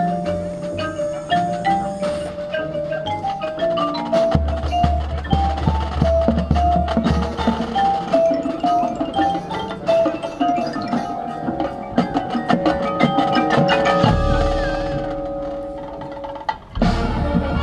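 Marching band playing, with front-ensemble mallet percussion (marimba and xylophone) carrying a quick stepping run of notes over sustained low brass. Near the end the music swells to a held chord, dips briefly, then comes back in loudly.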